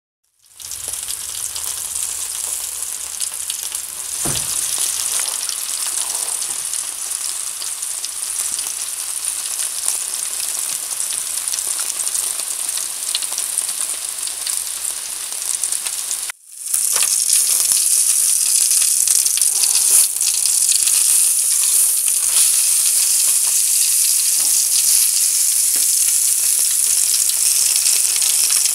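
T-bone steaks sizzling on perforated aluminium grill trays: a dense, steady frying hiss. It breaks off for a moment about 16 seconds in and comes back louder.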